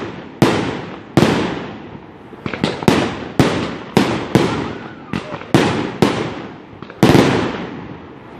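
Aerial fireworks bursting in quick succession: about a dozen loud bangs in eight seconds, each echoing away, with smaller pops in between.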